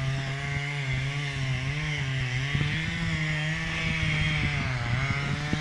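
Chainsaw running under load as it cuts into a tree trunk, its engine note steady but wavering slightly up and down as it works the cut.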